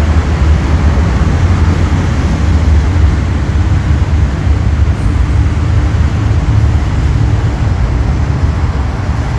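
Hong Kong MTR Kwun Tong Line train pulling out of the station, a loud, steady low rumble that eases off slightly as the train leaves.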